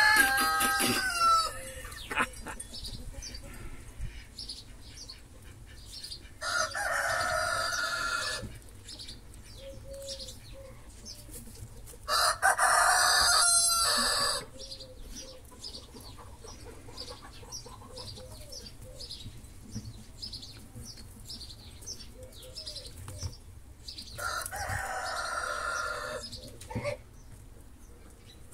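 Birds calling: four loud, drawn-out calls of about two seconds each, the first right at the start, then at about seven seconds, about twelve seconds (the loudest) and about twenty-four seconds, with softer short calls scattered in between.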